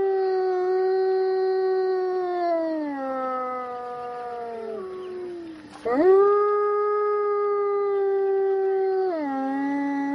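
A wolf howling: a long howl that steps down in pitch and fades, then about six seconds in a second howl rises sharply, holds steady, and drops to a lower pitch near the end.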